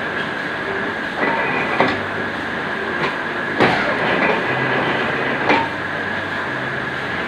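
Cutting machine running with a steady high whine, with several sharp clunks at irregular intervals, the loudest around the middle.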